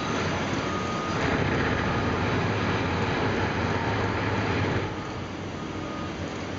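Heavy diesel machine running: a steady low engine rumble under broad mechanical noise. It grows louder about a second in and drops back somewhat just before the five-second mark.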